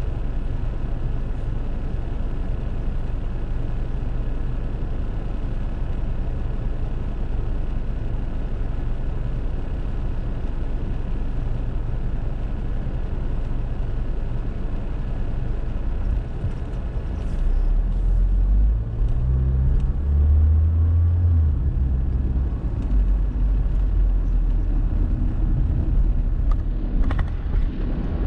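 Car engine idling with a steady low hum heard from inside the cabin while stopped, then the car pulls away about two-thirds of the way in: the engine note climbs in steps and the low road rumble grows louder.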